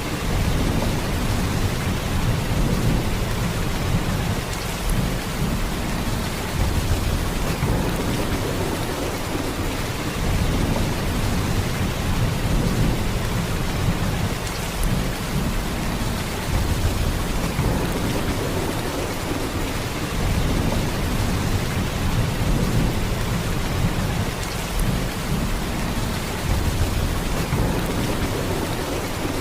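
Heavy rain in a steady downpour, an even hiss with a deep low rumble that swells and eases every few seconds.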